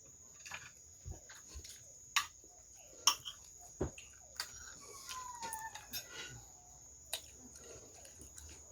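Close-up eating sounds: chewing and mouth noises with scattered sharp clicks and taps, the loudest about two, three and four seconds in. A short falling squeak comes about five seconds in.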